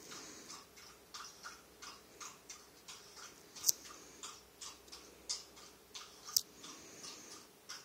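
Faint, regular ticking at about three ticks a second, with two sharper clicks a little after the middle.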